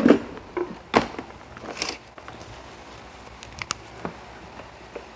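Knocks and clicks from handling a Panasonic induction pressure rice cooker as it is set to cook. The loudest knock comes at the start and another about a second in, followed by lighter clicks.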